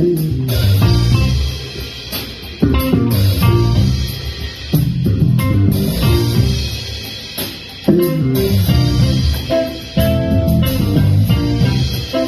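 Live rock band playing an instrumental passage on electric guitar, bass guitar and drum kit. Loud accented hits come about every two and a half seconds, each fading before the next.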